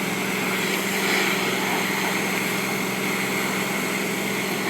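Pressure washer running steadily: a motor's even hum with the hiss of the water jet spraying against the house.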